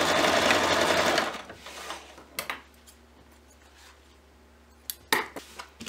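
Electric Singer sewing machine stitching at speed, its rapid needle rattle stopping about a second in. Near the end come a few short sharp clicks as the thread is snipped with scissors.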